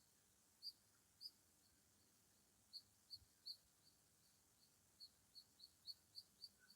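A small bird calling in short, high chirps, repeated irregularly and coming faster, about three a second, in the second half. Faint, over quiet open-air background.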